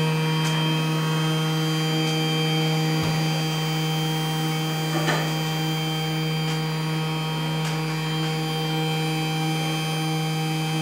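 Small desktop CNC PCB milling machine running, its stepper motors giving a steady electric hum with a ladder of higher overtones, and a few faint ticks.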